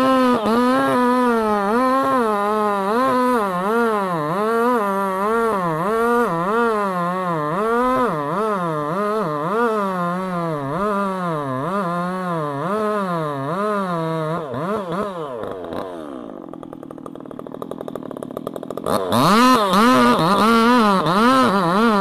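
Chainsaw running at high revs, its pitch dipping and recovering about once a second as it works under load. About two-thirds of the way through, the revs fall away and it goes quieter for a few seconds. Near the end it is abruptly back at full revs.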